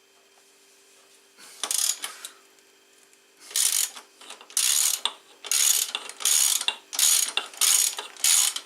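A ratchet wrench clicks through repeated back-and-forth strokes, about two a second, starting about three and a half seconds in, after a single short stroke earlier. It is loosening a motorcycle engine mounting bolt.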